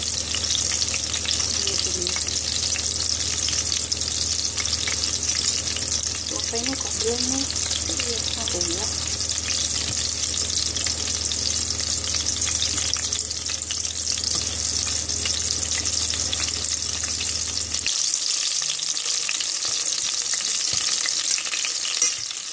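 Chicken tikki patties shallow-frying in oil in a stainless steel pan, a steady sizzle. A low hum underneath stops suddenly about three-quarters of the way through, and there is one sharp knock near the end.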